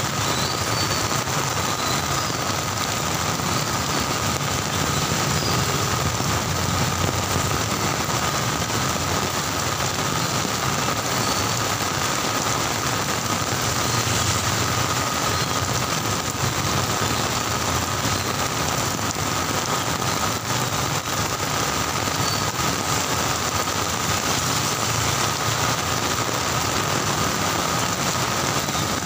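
Heavy rain pouring onto a wet road as a steady, dense hiss, with the low rumble of slow traffic's engines and tyres on the wet surface.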